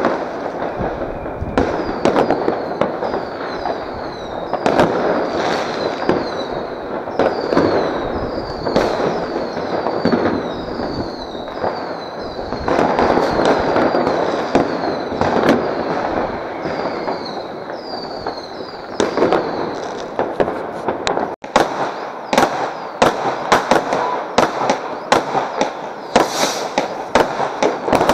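Many fireworks and firecrackers going off at once, near and far: continuous crackling with frequent sharp bangs, and a string of short falling whistles through the first half. After a brief break about two-thirds of the way through, the bangs come closer together.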